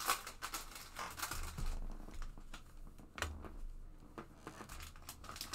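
Hands opening a box of trading cards: short, irregular papery tearing and crinkling rustles as the wrapping comes off and the cards are handled.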